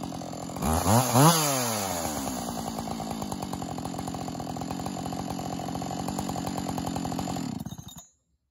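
Husqvarna 572XP two-stroke chainsaw, new and being broken in, blipped twice on the throttle about a second in, then idling steadily with its bar out of the wood. Near the end the engine is shut off and dies away.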